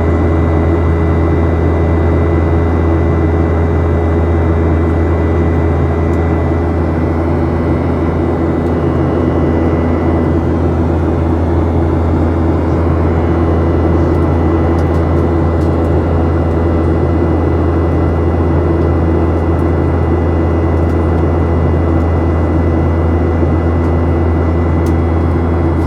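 Boeing 737-800's CFM56 jet engines running steadily: a loud, constant low drone with a steady hum above it that does not rise or fall.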